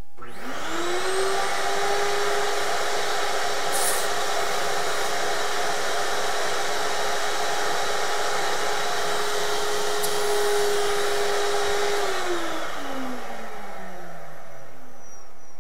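A vacuum motor switches on and spins up with a rising whine, then runs steadily, pulling helium out of a plastic bag through a hose. About twelve seconds in it shuts off and winds down, its pitch falling.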